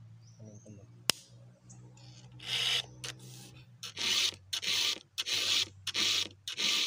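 Round file rasping across the cutters of a chainsaw chain in hand-filing strokes, which start about two and a half seconds in and come at about two a second. A single sharp click sounds about a second in.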